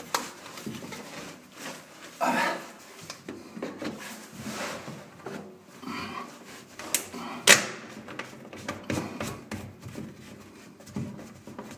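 Plastic drain pipework being handled and pushed together: a white bath trap and grey PVC elbow rubbing and knocking, with one sharp plastic click about seven and a half seconds in.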